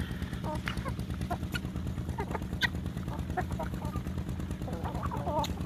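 Flock of Aseel chickens feeding on scattered grain: short clucking calls, most of them near the end, over scattered sharp ticks of beaks pecking the ground. A steady low hum runs underneath.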